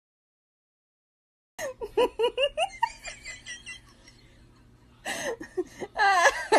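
Silence, then about a second and a half in a person starts laughing in short bursts, louder again near the end.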